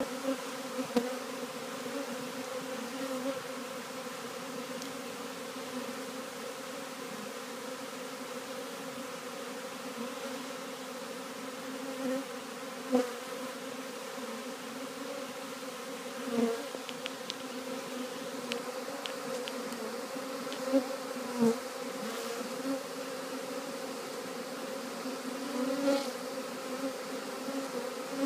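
Mass of honey bees buzzing in a steady hum as the colony walks into a new hive, with several brief louder swells.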